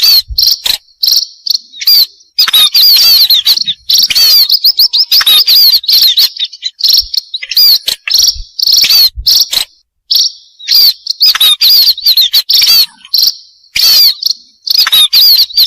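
Burung pipit lure call: a loud, dense chatter of many rapid high chirps from a flock of small seed-eating birds, with a short break about ten seconds in.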